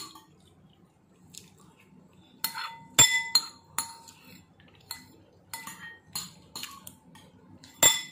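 A metal spoon clinking against a glass Nutella jar and dishes: a string of sharp, ringing clinks, the loudest about three seconds in and another just before the end, with quiet gaps between.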